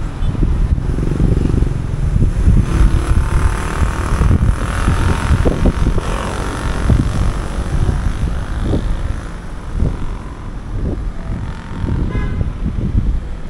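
Road traffic passing: cars and motorcycles driving by, one swelling louder and then fading a few seconds in, over a steady low rumble of wind on the microphone.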